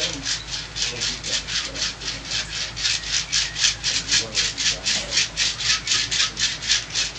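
Massage strokes rubbing quickly and rhythmically over skin, about five strokes a second.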